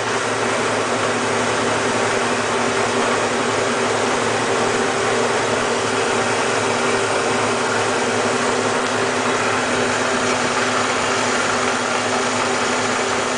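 Delta 46-614P variable-speed wood lathe running steadily with nothing mounted on the spindle, its 1 HP three-phase motor and drive giving a constant hum with a hiss over it.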